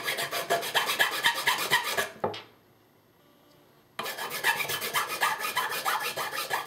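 A small part scraped quickly back and forth along a large flat metal file, a fast rasping of several strokes a second as its face is filed flat. The filing stops about two seconds in and starts again about two seconds later.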